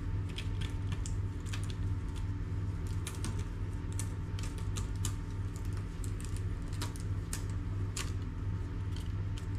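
Chilled dough being crumbled by hand and dropped in pieces onto a baking tray lined with baking paper: irregular light ticks and paper crinkles, over a steady low hum.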